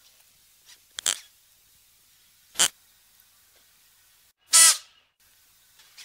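Klipspringer antelope giving three short, sharp calls, spaced a second and a half to two seconds apart, the last the loudest.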